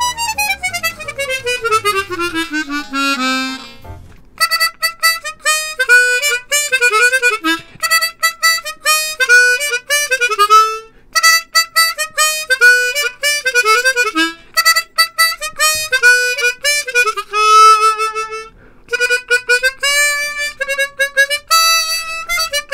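Hohner Xpression 12-hole chromatic harmonica being played: a fast run falls nearly two octaves over the first four seconds, then quick melodic phrases follow, broken by short pauses. Its tone is slightly breathy and hissy, which the player guesses comes from air leaking in the instrument.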